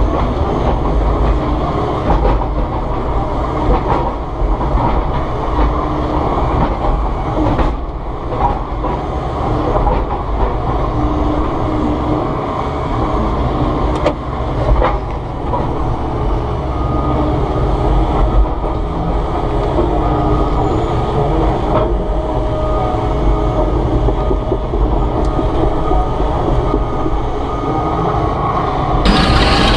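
Volvo ECR145EL excavator's diesel engine and hydraulics running steadily at working revs, with a low rumble and a few sharp knocks.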